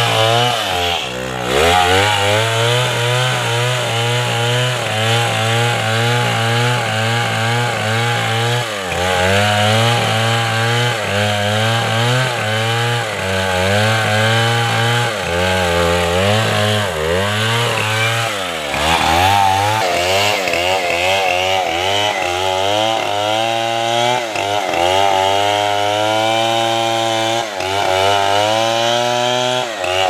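Large petrol chainsaw cutting into a thick tree trunk near full throttle. The engine pitch wavers throughout and dips briefly several times as the chain loads up in the cut, then picks back up.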